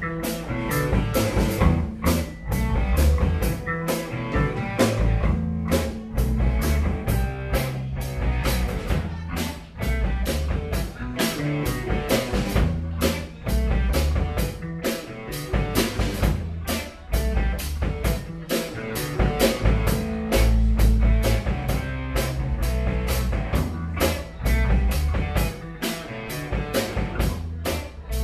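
Live rock band playing: amplified electric guitars over a drum kit, with cymbals struck in a steady beat.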